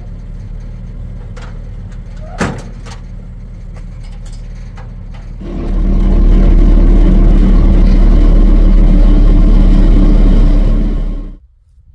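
An engine running steadily, with a sharp click about two and a half seconds in. About five and a half seconds in it grows much louder and holds there, then cuts off abruptly near the end.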